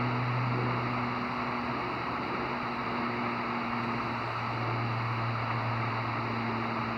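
Shortwave band noise from a Grundig G5 receiver tuned to the 20-metre amateur band between transmissions: a steady hiss of static cut off above the voice band, with low humming tones that fade in and out.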